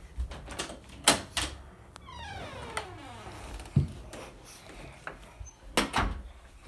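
A few sharp knocks and bumps, with a long squeaky creak that slides down in pitch for about a second and a half in the middle, like a hinge or lid being worked open.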